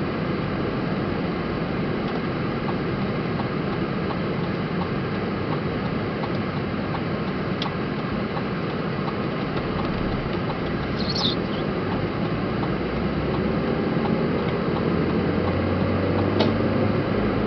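Steady road and engine noise heard inside a moving car's cabin at speed. The engine note rises slightly near the end, with a few faint clicks along the way.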